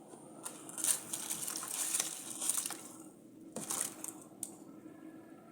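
Dry rice grains poured into a pot of nearly boiling water, a rustling hiss for about two seconds, then a shorter pour about three and a half seconds in.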